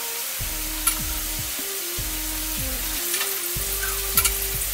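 Chicken pieces deep-frying in oil in a wok at medium temperature, sizzling steadily as the coating sets, while a metal ladle stirs them and clinks against the wok twice, about a second in and near the end. Soft background music with a simple melody plays underneath.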